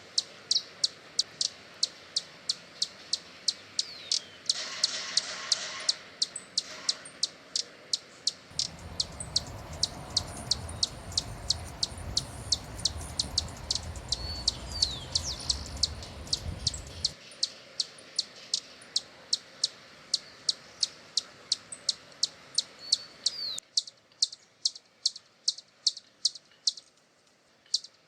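Hummingbird giving a steady series of short, sharp high chips, about three a second, with a few brief swooping notes mixed in. A low rumble comes in for several seconds in the middle.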